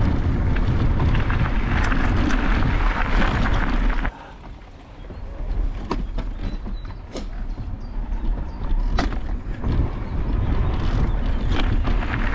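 Wind rushing over the microphone and tyres rolling on a gravel path, recorded from a moving e-bike. About four seconds in the rushing drops suddenly to a quieter rolling sound with a few sharp clicks, then builds back up.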